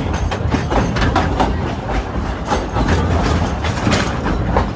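Dollywood Express narrow-gauge passenger train rolling along the track: a steady low rumble with irregular clicks and clanks from the wheels and cars.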